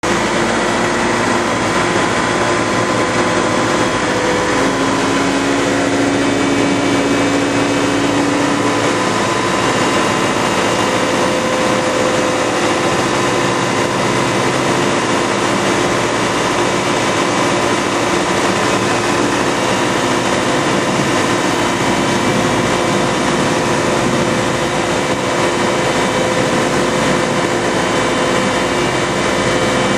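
125 hp hydraulic marine thruster running steadily under power, a loud even mechanical hum with several held tones, its propeller churning the water into a rooster tail of wash.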